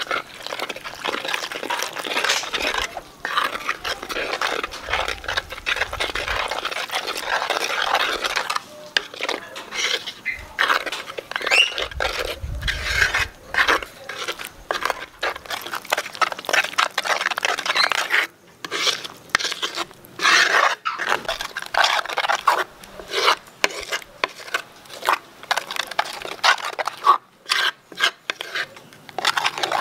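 Metal spoon scraping and stirring in a bowl, mixing rice flour and water into a batter: an uneven run of rasping scrapes, broken by more short pauses in the second half.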